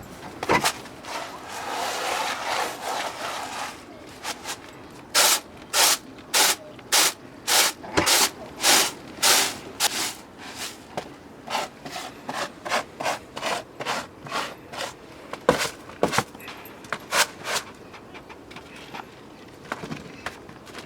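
Barley being worked by hand with traditional tools, heard as rhythmic rubbing and scraping. The first few seconds are a steady rasp. From about five seconds in come loud, regular strokes about two a second, which grow fainter and sparser later on.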